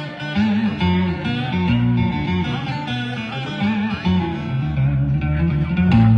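Instrumental vọng cổ accompaniment: a plucked guitar plays a melodic interlude of quick, bending notes, with no voice.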